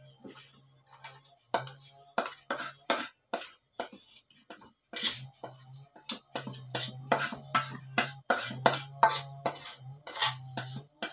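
Spatula scraping and knocking against a metal wok as marinade is scooped out of it: a quick, irregular run of sharp clinks and scrapes that comes thickest in the second half. A low hum cuts in and out underneath.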